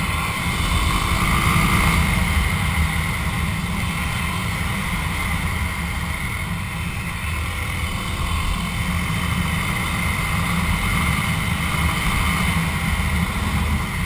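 Dual-sport motorcycle running at a steady cruising speed on a dirt road, the engine under a heavy low rumble of wind buffeting the microphone.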